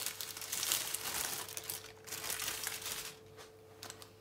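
Plastic freezer bag crinkling and rustling as it is pulled over a stuffed grape leaf to roll it tight. The rustle stops about three seconds in, leaving a few small clicks.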